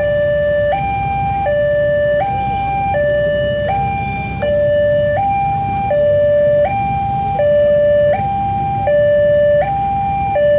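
Railway level-crossing warning alarm: an electronic two-tone signal alternating between a higher and a lower tone, each held about three-quarters of a second, sounding while the crossing's red lights flash to warn of an approaching train. A low rumble runs underneath.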